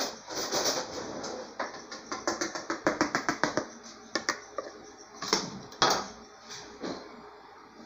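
A kitchen utensil clicking against a mixing bowl, a quick run of light clicks at about six a second for just over a second, then a few separate louder knocks as the bowl is handled at the counter.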